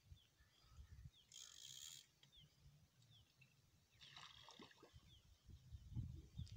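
Faint clicking whirr of a spinning reel being cranked in two short spells while a hooked fish is reeled in toward the bank. A low rumble builds near the end.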